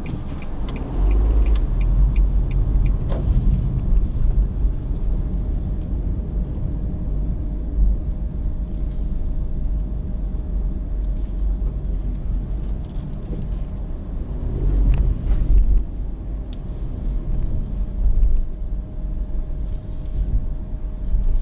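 Steady low road and engine rumble inside the cabin of a car driving slowly, with a faint steady hum and a few brief knocks.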